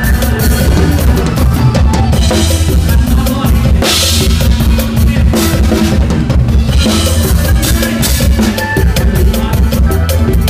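Drum kit driving a live mor lam sing band, heard close to the kit: steady bass drum, snare and rimshot strokes over a loud, heavy bass line. Cymbal crashes ring out several times, the loudest about four seconds in.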